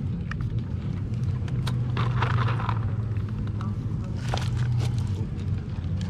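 A steady low engine drone, with scattered clicks and crunches from a dog eating dry food out of a hand and from pebbles shifting underfoot.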